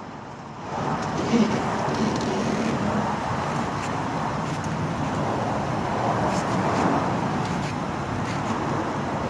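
Car engine running and straining in reverse, starting under a second in and holding steady, while the car binds and won't back up: a brake caliper whose bracket mounting bolt has come out is jammed and grinding inside the wheel.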